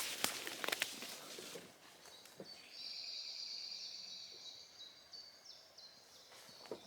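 A few footsteps crunching through woodland leaf litter in the first second and a half, then a songbird singing one long, high song of about three and a half seconds. More steps return near the end.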